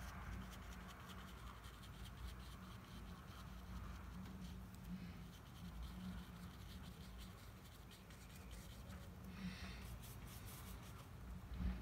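Stiff, splayed watercolour brush dabbing and scratching on paper to stipple tree foliage: a faint, irregular run of small taps and scrapes.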